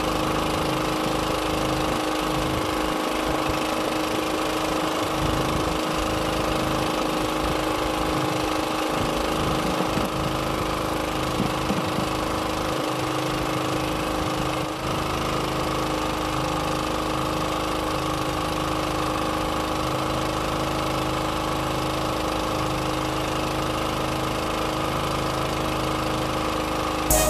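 A boat's engine running steadily at a constant speed, giving a continuous even hum.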